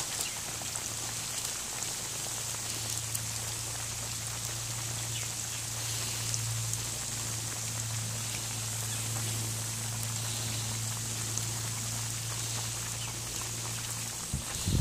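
Catfish fillets deep-frying in oil in a cast iron Dutch oven: a steady sizzle with scattered small crackles, over a steady low hum. Near the end a metal turner is pushed into the oil among the fillets and stirs it.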